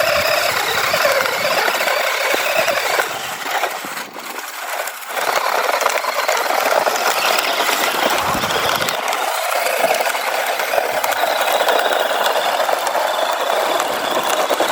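Large RC car's electric motor and drivetrain running hard, a steady mechanical whirring and chattering of gears, briefly easing off about four seconds in.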